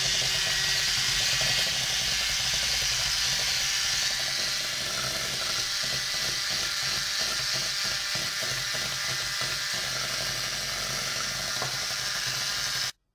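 Electric hand mixer running at a steady speed, its wire beaters whisking raw egg whites with a pinch of salt in a glass bowl, the first stage of beating them to a white foam. A fast, even rattle comes through about halfway in, and the motor cuts off suddenly near the end.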